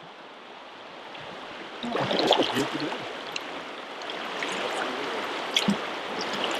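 River current flowing steadily, a continuous wash of moving water that grows louder about two seconds in.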